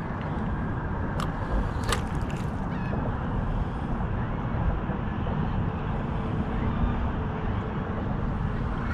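Steady low outdoor rumble, with a few sharp clicks about one to two seconds in.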